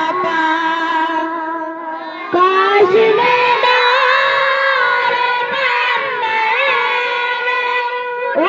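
Singing in long held notes that waver slightly, the melody stepping up to a higher held note a little over two seconds in.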